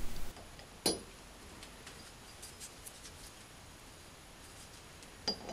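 A few light clicks and taps as limited-slip kit coil springs and retaining blocks are set down on a workbench: one sharper click about a second in, faint ticks after, and another click near the end.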